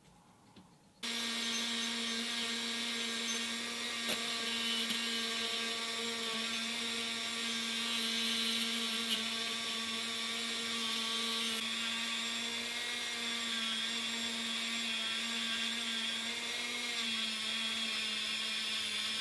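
Handheld rotary tool running at a steady high speed, a constant whine, with its small bit working on the bare metal of a stripped diecast car body. It starts about a second in.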